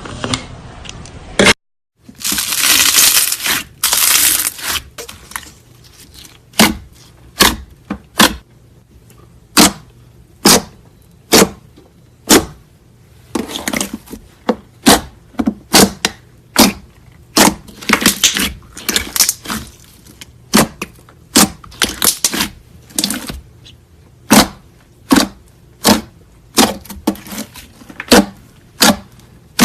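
Slime being pressed and worked by hand, making sharp crackling pops about one or two a second, with a few longer crackly stretches.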